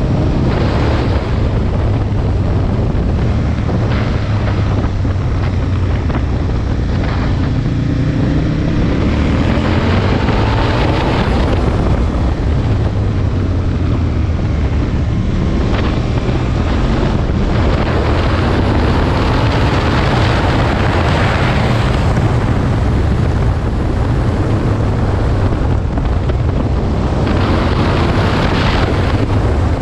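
Aprilia Tuono 1000's V-twin engine running at road speed, with heavy wind noise on the microphone; the engine note climbs partway through.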